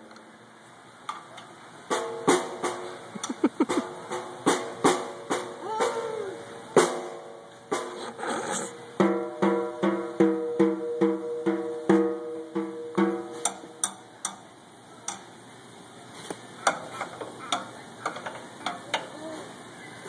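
A small child hitting the drums of a drum kit with a drumstick in uneven, irregular strikes. In the middle comes a steady run of about two or three hits a second on a ringing drum. Near the end it thins to occasional taps.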